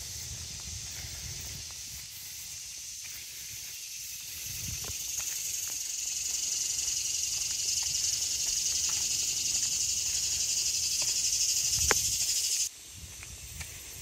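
A cicada buzzing from the trees: a high, hissing drone that swells over several seconds and cuts off suddenly near the end. Faint footsteps on the wooden boardwalk planks sound underneath.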